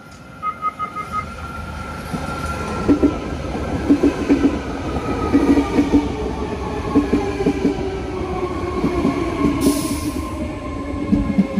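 BART train running along the platform, its whine falling slowly in pitch as it slows, over a dense clatter of wheel clicks. A quick run of beeps comes about half a second in, and a short hiss near the end.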